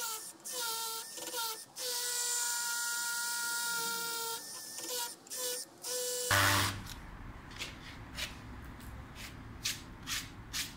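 Cordless drill whining in several short bursts and one steadier run of about two and a half seconds, as it drills the screw holes through a tank connector flange into a concrete pond wall. About six seconds in, the sound changes abruptly to a low hiss with a string of faint ticks.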